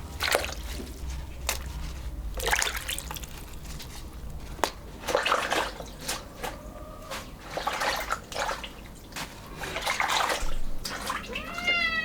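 Water splashing and sloshing in irregular bursts every second or two, as in washing by hand. A cat meows once near the end.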